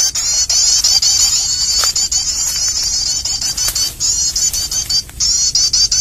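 A 'starter prenjak' bird-lure recording playing loud through a phone speaker: a fast, high, unbroken chatter of repeated rising chirps, with two brief gaps in the second half. It is a trapper's lure track of prinia chatter mixed with the calls of other birds in distress, played to bring birds down to lime sticks.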